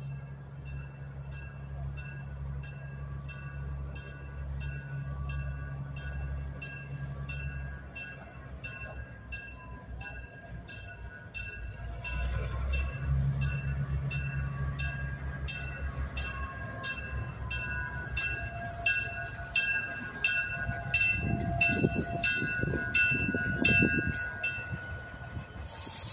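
Diesel switcher locomotive running and drawing slowly closer, its engine a low steady rumble that grows heavier toward the end. Over it, a bell rings at an even pace, about one and a half strokes a second.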